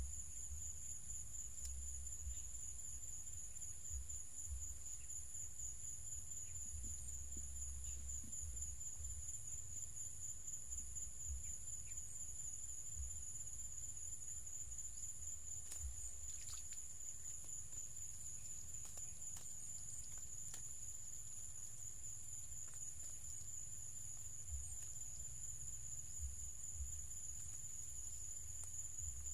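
A steady, high-pitched insect chorus trilling without a break, over a low rumble with a few faint clicks and rustles.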